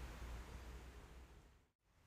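Faint outdoor background: a steady hiss with a low rumble underneath, fading out to a moment of dead silence near the end.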